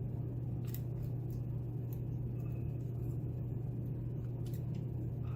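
A steady low hum, with a few faint light clicks of small brass lock pins and springs being handled during disassembly.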